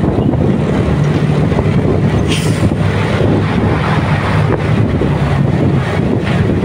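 Motorcycle riding through traffic: wind rushing over the microphone over a steady engine hum, with a short hiss about two seconds in.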